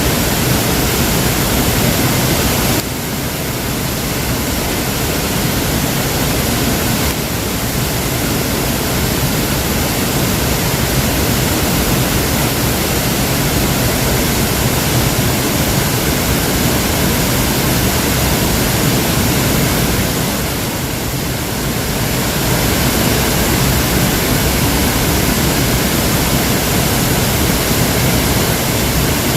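Waterfall: a steady, loud, dense rush of falling water, with brief small dips in level about three seconds in and again about twenty seconds in.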